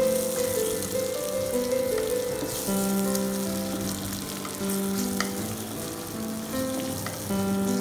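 Sliced onions and green chillies sizzling as they fry in oil in a pan, stirred with a wooden spatula that scrapes and taps now and then. Background music with held notes plays throughout.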